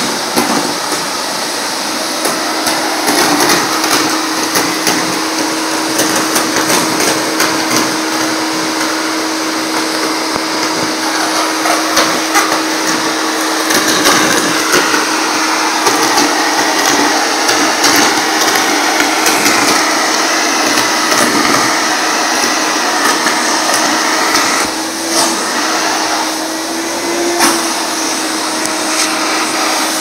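Vacuum cleaner running steadily with a crevice nozzle on its hose, a constant motor hum under a rush of air. Frequent sharp ticks and rattles run through it as torn paper scraps are sucked up and the nozzle knocks against the rug and floor.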